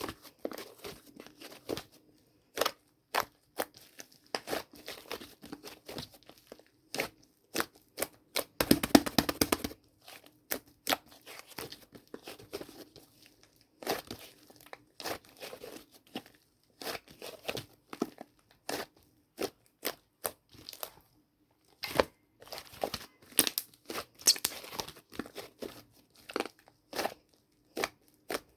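Cheese-textured clay mixed with white fluffy slime being squeezed, pulled and torn apart by hand: a run of short sticky crackles, pops and tearing sounds, with a denser, louder stretch of crackling about nine seconds in.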